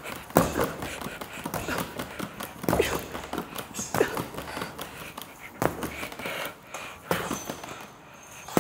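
Boxing gloves punching a freestanding padded punching bag: sharp thuds at uneven intervals, some in quick pairs.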